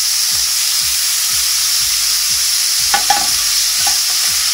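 Diced onion sizzling in hot olive oil in a pot, with a steady hiss, while a plastic spoon stirs it and scrapes the pan a few times about three seconds in. The onion is being softened without browning.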